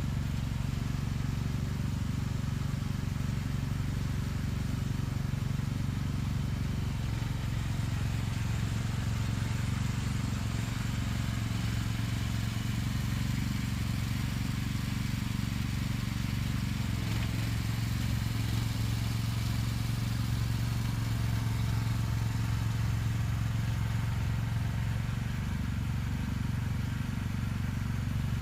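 Delivery vehicle's engine running steadily, a low, even hum with no revving.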